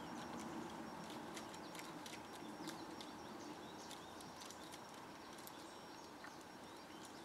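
Quiet outdoor backyard ambience with many faint, scattered light clicks and ticks over a soft steady background.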